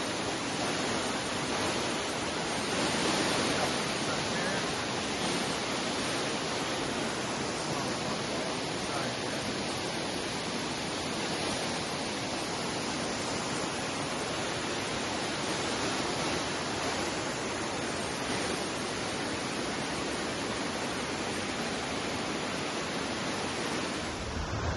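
Waterfall's steady rushing roar of falling water, an even unbroken hiss with no pauses.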